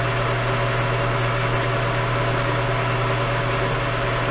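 Enco metal lathe running steadily at about 578 RPM, turning down the shank of a drill bit held in a 5C collet: an even machine hum.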